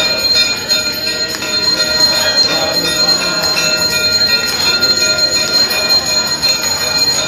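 Temple bells ringing continuously for the aarti: a dense, loud metallic clangour with several sustained ringing tones that stay level throughout.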